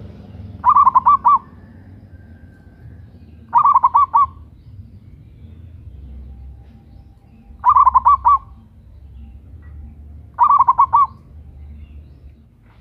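Zebra dove (perkutut) cooing: four short phrases a few seconds apart, each a quick run of about four or five pulsed coo notes, over a faint low background hum.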